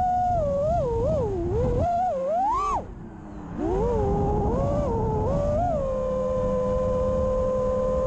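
FPV quadcopter's electric motors whining, the pitch rising and falling with the throttle. About two and a half seconds in, the whine climbs sharply and then cuts out, goes quiet for about a second, and comes back, holding a steady pitch for the last couple of seconds.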